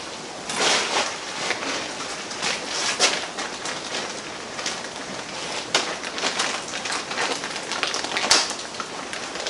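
Irregular clicks, clacks and rustling of parts and tools being handled on a workbench, with a sharp click near the end.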